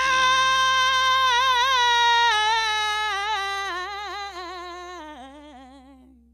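A woman's voice holds one long sung note. The vibrato widens as the note steps down in pitch and fades out near the end. Underneath, a soft sustained electric-guitar chord dies away.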